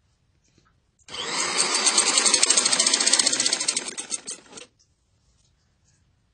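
Sewing machine stitching through cotton fabric in a fast, even run for about three and a half seconds, then slowing to a stop.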